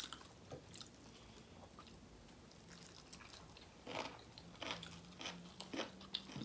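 Crunching bites and chewing of raw green mango slices, close to the microphone: soft and sparse at first, then a run of sharper crunches from about four seconds in.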